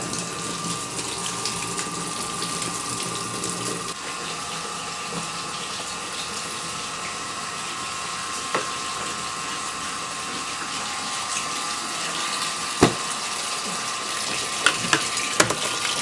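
A twin-tub washing machine draining during a drain test: a steady rush of running water with a faint steady hum, broken by a couple of sharp clicks. The drain hose runs upward, which the repairer suspects sends water back into the spin-dryer compartment.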